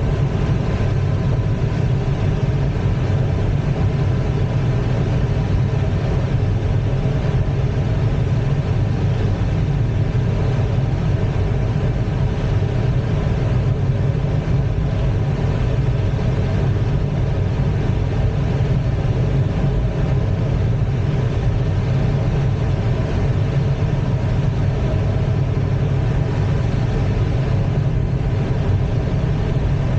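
Steady rush of airflow over an ASK-21 glider's cockpit canopy in unpowered gliding flight, a low, even rumble that does not change.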